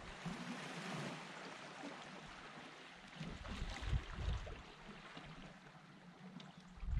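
Faint sea washing against a rocky shore, an even hiss, with a few low thumps about halfway through.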